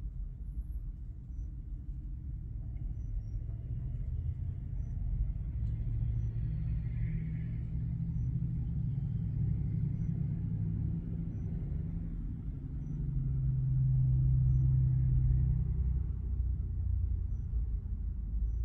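Low vehicle engine rumble that builds over the first several seconds, is loudest about three quarters of the way through, then eases slightly.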